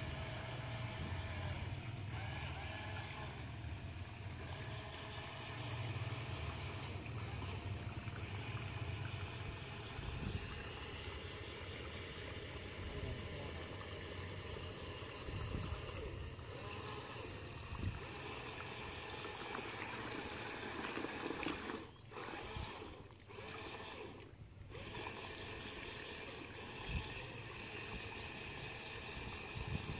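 Steady trickling and churning of water stirred by the spinning wheels of a small homemade radio-controlled amphibious car as it paddles across a lake. The sound dips briefly a few times about two-thirds of the way through.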